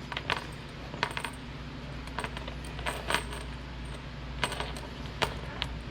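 Metal tailgate chain links clinking now and then as the chain is handled and pulled through its cover, about eight sharp clinks spread over a few seconds, over a steady low hum.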